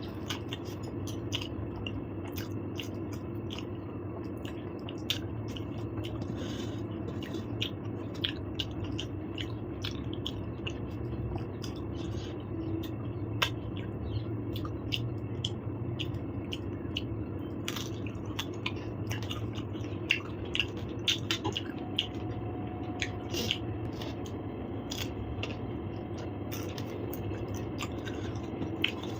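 A person chewing and eating soft food close to the microphone, with many small wet mouth clicks and squishes, over a steady low background hum.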